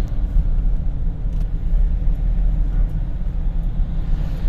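Hino 200 light truck's diesel engine and road noise while driving on a road test: a steady low rumble with no change in pitch.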